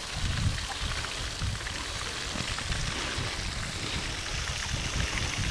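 Water spilling over a small concrete weir into a pond: a steady rushing splash.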